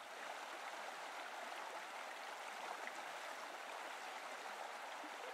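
Faint, steady outdoor background noise: an even rushing hiss with no distinct events.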